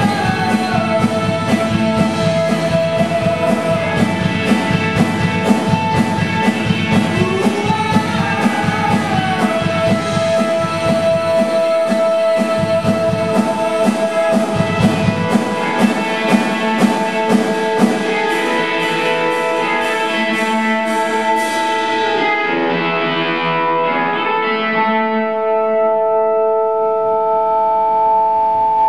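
Live rock band playing: distorted electric guitar, acoustic guitar, bass and drums with a sung vocal line. About twenty seconds in the drum beat stops and the guitars are left holding long, sustained notes that ring on.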